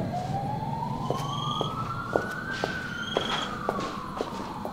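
A siren wailing in one slow sweep, its pitch rising for a couple of seconds and then falling. Over it, from about a second in, sharp clicks come about twice a second, like heeled boots stepping on a wooden floor.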